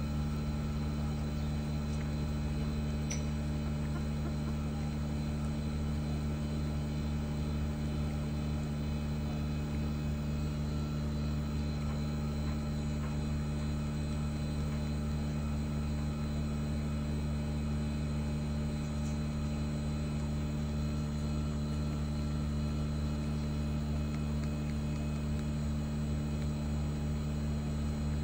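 Steady low mechanical hum made of several constant tones, from a running motor or fan, with a faint short high chirp about three seconds in.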